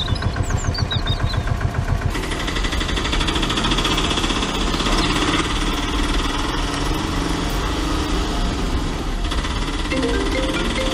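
Auto-rickshaw's single-cylinder engine running, with a rapid low pulsing for the first two seconds, then a steady drone as the three-wheeler drives along.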